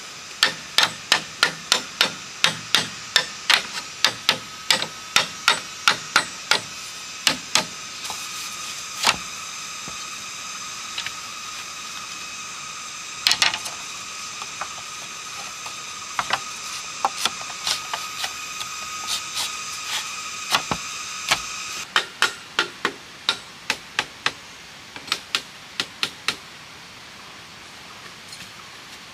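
Machete striking split bamboo slats, a run of sharp wooden knocks about two a second, then sparser knocks, then another quick run near the end. A steady high drone sits under the knocks and stops about two-thirds of the way through.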